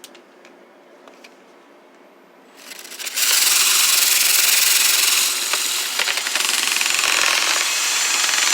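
Dryer vent cleaning equipment starting up in the vent line about three seconds in, then running loud and steady with a rattling mechanical noise. A few faint clicks come before it.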